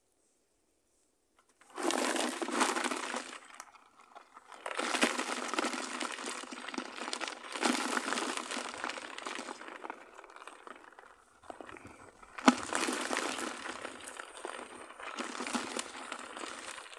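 Rustling and crackling of a fishing net being picked through and untangled by hand, in about five stretches of one to three seconds, with one sharp crack about twelve seconds in.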